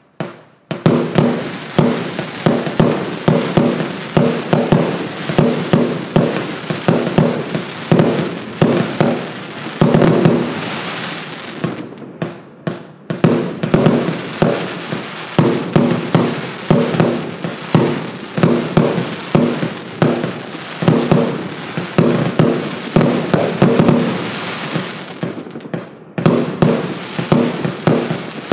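A 100-shot, 25 mm compound fireworks cake firing rapid volleys of shots and bursts. It runs on without a let-up except for short breaks about twelve and twenty-six seconds in, and a stretch of dense crackle comes just before each break.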